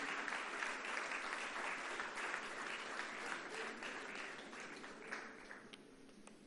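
Audience applauding, the clapping thinning out and fading over the last second or two.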